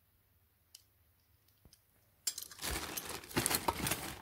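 A plastic bag crinkling and small die-cast metal toy cars clinking against each other as a hand rummages through a bagful of them. It starts about two seconds in, after a near-silent stretch with a few faint clicks.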